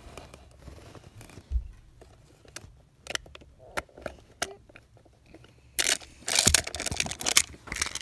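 Handling noise among plastic magnetic building tiles: scattered light clicks and rustles, then a loud burst of crackling and rustling from about six seconds in.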